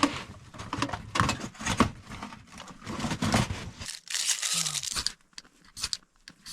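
Tinder being torn and crumpled by hand and fed onto a fire's leftover coals to rekindle it: irregular rustling and tearing, then a short hiss about four seconds in.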